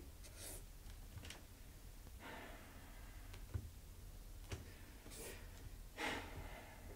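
Sharpie marker scratching across notepad paper in about four short strokes as written words are crossed out. The last stroke is the loudest.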